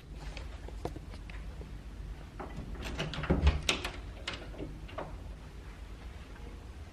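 A cluster of sharp clicks and knocks from household objects being handled, loudest about halfway through, over a low steady rumble.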